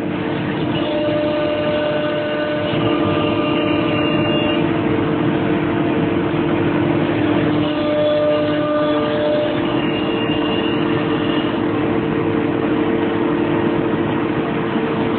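2015 Multicam 3000 Series CNC router running, its spindle cutting a wooden sheet with a steady whine and machine noise.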